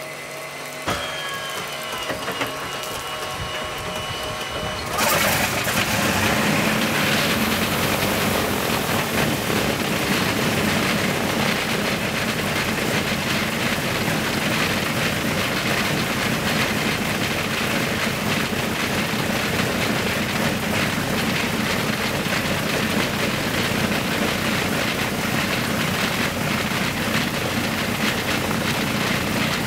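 Shvetsov ASh-82T twin-row radial engine of an Ilyushin Il-14 being started: a thin starter whine with a click about a second in, then about five seconds in the engine catches with a sudden jump in loudness and keeps running steadily.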